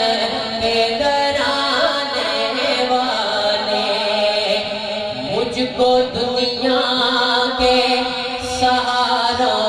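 A man's voice chanting a naat, a devotional poem in praise of the Prophet, into a microphone, unaccompanied, in long held notes that bend up and down.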